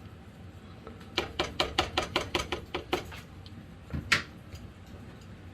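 A metal utensil clinking against a soup pot: a quick run of about ten light knocks, then one louder clink about four seconds in.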